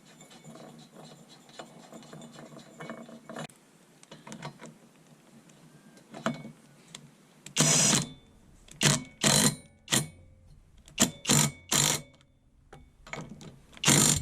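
Ratchet wrench on the lawnmower's flywheel nut: light rapid clicking as the nut is run down, then about eight loud short ratcheting bursts from about halfway in as it is tightened.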